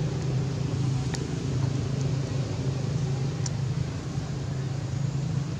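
A steady low engine drone under a faint hiss, with a couple of light clicks.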